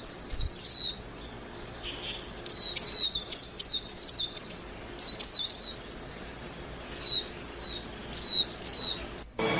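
White-eye chirping in quick runs of short, high, falling notes, with pauses of a second or more between runs. The sound breaks off abruptly near the end.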